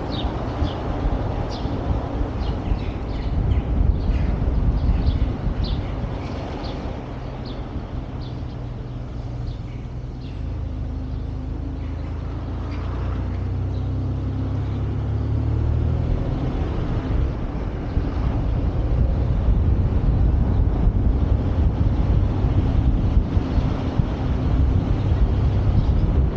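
Wind rumbling on the microphone of a vehicle-mounted camera moving along a road, over steady road and engine noise. A deeper engine hum swells about halfway through and then fades back into the rumble.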